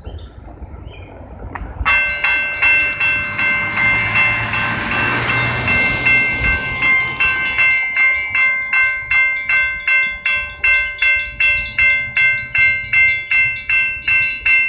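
Railroad crossing warning bell starting about two seconds in and ringing steadily at about two strikes a second as the crossing activates for an approaching train. A brief rushing hiss swells and fades a few seconds in.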